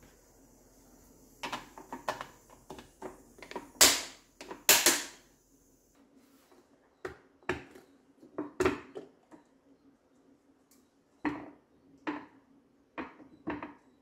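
Glass food-storage container with a snap-lock plastic lid being handled on a stone countertop: a string of sharp clicks and knocks from the lid latches and the glass, with two louder clatters about four and five seconds in.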